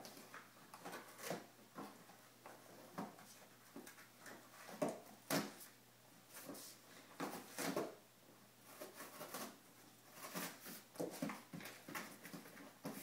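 Two English springer spaniel puppies tearing and chewing a cardboard box: irregular crackles and rips of cardboard.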